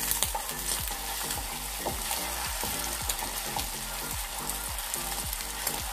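Beaten eggs sizzling in a frying pan while a spatula folds and pushes them about. The sizzle flares up right at the start as the egg is turned, then holds steady.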